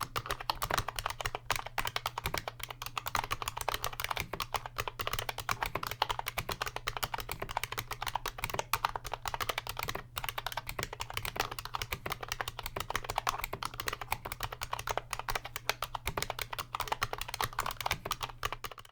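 Fast, continuous typing on a 1994 IBM Model M buckling-spring keyboard with silicone-greased springs: a chunky thock from the thick PBT keycaps and no spring ping. There is a brief pause about ten seconds in.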